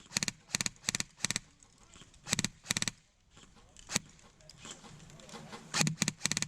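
Airsoft gun firing about ten short bursts of a few rapid shots each: four in the first second and a half, a few more around the middle, and three close together near the end.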